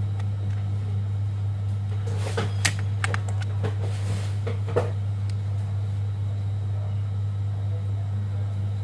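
Steady low electrical hum, with a few light clicks about two to three seconds in and another near five seconds.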